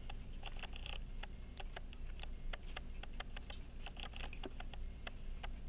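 Faint, irregular light clicking from a pocket watch's winding works: the click snapping over the ratchet wheel teeth as the mainspring is wound, testing whether the freshly bent click spring now makes the click catch.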